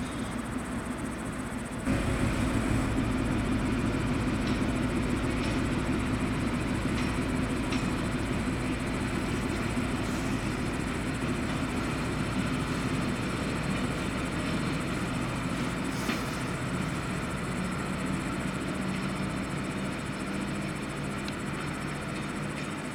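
TGM4 diesel-hydraulic shunting locomotive's diesel engine running as it moves slowly along the track, the engine getting suddenly louder about two seconds in as it is throttled up, then holding a steady low drone.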